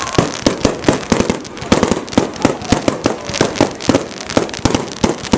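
Fireworks display: a rapid, irregular string of sharp bangs and crackles, several a second.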